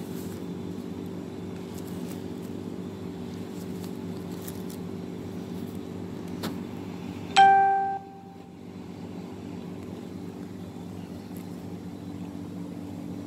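Steady low machine hum throughout. About seven seconds in, a single loud electronic beep about half a second long, just after a small click.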